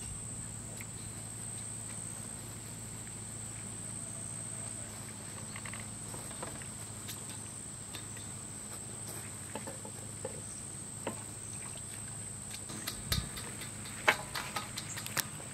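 Insects keep up a steady, high-pitched chirring in the background. Near the end come a few sharp clicks and knocks as a bunch of pumpkin flowers is handled and set down on a metal tray.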